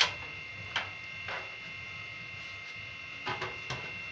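Sharp metallic clicks and taps of a screwdriver bit and screw knocking against the sheet-metal chassis of a gas instant geyser. The loudest comes at the start, two more follow within the first second and a half, and a quick group of three comes a little after three seconds. A faint steady high whine runs underneath.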